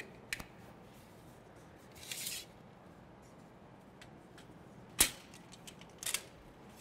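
Screwless server rack rail being fitted to a rack post: a brief swish about two seconds in, then a sharp click about five seconds in and a few smaller clicks a second later, as the rail's pins seat and its locking tab snaps shut to show it is secure.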